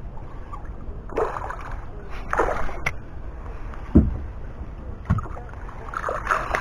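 Wind and water noise around a small boat on the water, with a few short sloshing sounds, a sharp knock about four seconds in and a softer knock about a second later.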